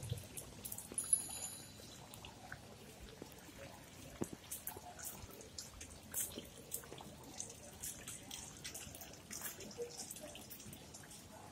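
Faint, irregular clicks and scuffs of footsteps on a paved sidewalk over a quiet street background, with a brief high-pitched tone about a second in.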